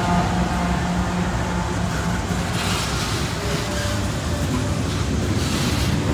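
Diesel-electric locomotives passing with their engines running, giving way about two seconds in to the rumble of empty coal hopper cars rolling by on the rails, with two short spells of brighter hiss from the wheels.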